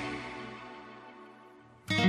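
Background music: one piece fades out to near silence, and a new piece with plucked guitar starts abruptly near the end.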